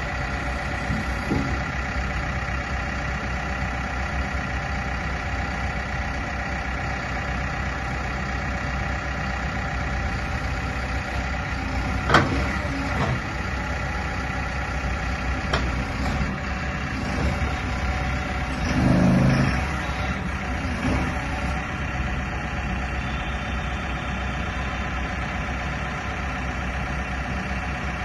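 Caterpillar 424 backhoe loader's diesel engine running steadily at idle. Partway through there is a sharp knock, then a smaller one, and later a brief, louder low burst of sound.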